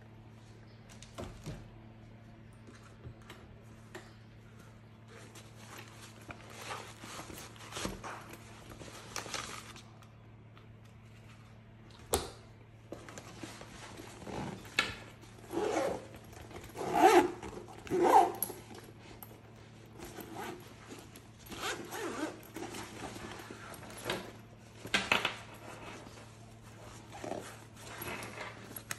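Ballistic nylon travel tote being handled: fabric rustling and scraping in scattered bursts as its zippers are pulled, the loudest bursts about two-thirds through, with one sharp click a little before the middle. A steady low hum runs underneath.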